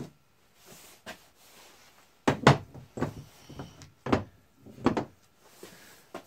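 Irregular metallic clunks and knocks from the steel shafts and pillow-block bearing housings of a homemade roll-forming machine as they are shifted and set down on a metal bench. About seven knocks, the loudest pair about two and a half seconds in.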